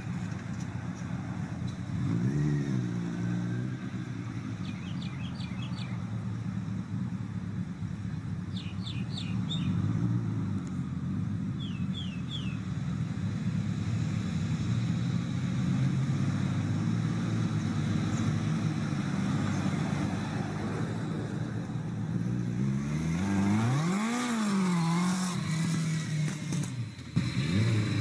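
Motorcycle engine of a homemade three-wheeled motorcycle-and-car-cab vehicle running steadily, revving up and back down about two seconds in and again near the end.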